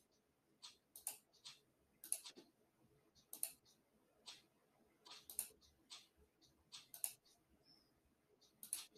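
Faint, sharp clicks at an irregular pace of about one or two a second, as cards are played one after another on an online bridge table on a computer.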